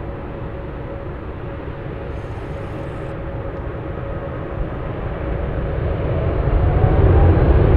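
Airliner jet engines running at taxi power: a steady low rumble that grows louder over the last two seconds or so, with a faint rising whine.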